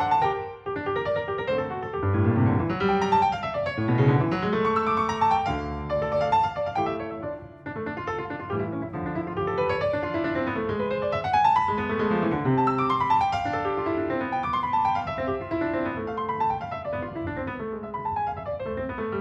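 Background piano music: a solo piano playing flowing runs of notes that climb and fall.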